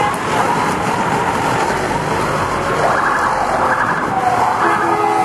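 Emergency vehicle siren sweeping up and down in pitch about three seconds in, then an air horn sounding a steady chord near the end, over the rumble of passing trucks.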